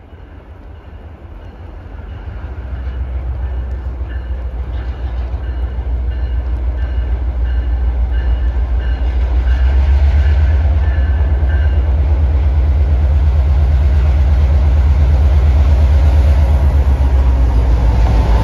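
EMD GP38 diesel-electric locomotive (Maine Central 255) approaching on the rails, its low diesel engine rumble growing steadily louder until it is close by near the end.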